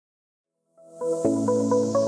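Music with a steady beat, starting about a second in after a brief silence.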